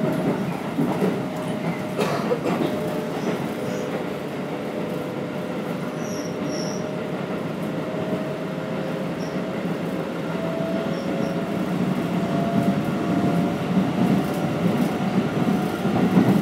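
Keikyu 1500-series electric train running between stations, heard from inside the car: wheels rumbling on the rails with a thin, slightly wavering tone over them. It grows louder over the last few seconds.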